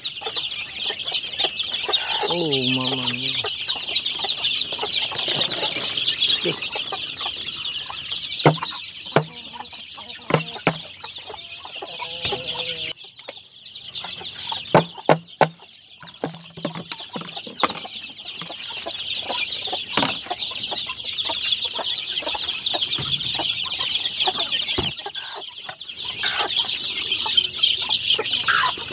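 Chickens in a coop: a continuous high chorus of cheeping, one lower cluck about two seconds in, and scattered knocks and taps.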